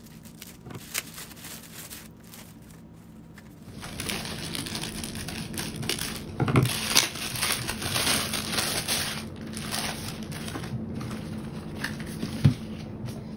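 Packaging being opened by hand: rustling, crinkling and small clicks, faint at first and busier from about four seconds in, with one sharp knock near the end.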